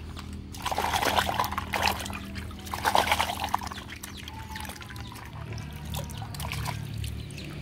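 Puddle water splashing and sloshing as a plastic toy car is swished back and forth in it to wash off mud, in a few bursts, the strongest about a second and about three seconds in.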